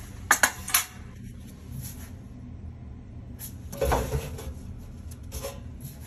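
Metal tool clinking and knocking against the metal parts of an opened clothes dryer: three quick clicks near the start, a louder clatter about four seconds in, and a lighter click near the end.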